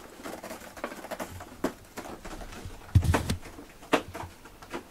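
A cat playing among plush toys and cushions: scattered soft knocks and scuffles, with one heavier thump about three seconds in.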